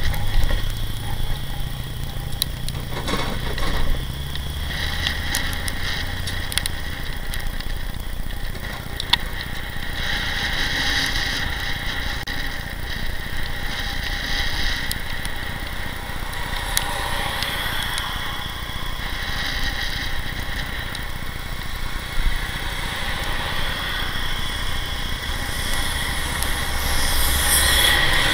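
Road traffic heard from a moving bicycle: a steady rush of wind and road noise, with cars and a truck running close alongside in the first few seconds and another vehicle passing louder near the end.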